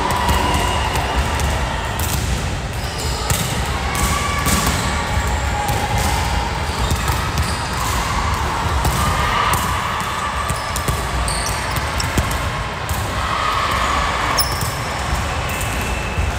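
Volleyballs being struck and bouncing on a hardwood gym floor: irregular slaps and thuds, over faint voices in a large, echoing gym.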